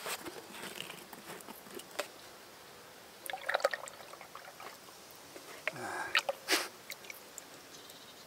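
Small clicks and knocks of a plastic bottle of linseed oil being handled and uncapped, then oil dribbling from it into a bucket of primer.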